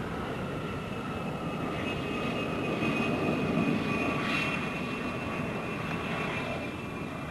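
Jet engines running: a steady high turbine whine over a continuous rumble, swelling a little around the middle.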